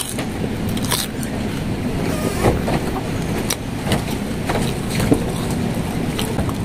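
Person chewing, with scattered soft mouth clicks and smacks, over a steady low background rumble.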